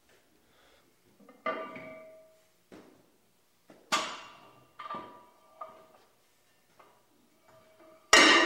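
Metal gym weights clanking: about five sharp metallic clanks at an uneven pace, each ringing briefly, with the loudest near the end.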